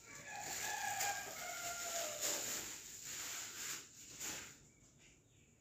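Cardboard cosmetic boxes rustling as they are handled, in several short bursts. Near the start there is a drawn-out call in the background, falling in pitch and about a second and a half long.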